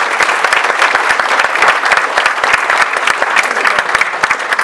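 An audience applauding, a dense, steady clapping of many hands.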